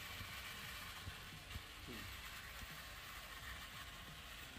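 Faint, steady running of the small 12V DC motor that drives the model boat's waste-collection conveyor belt, under a steady outdoor hiss and low rumble.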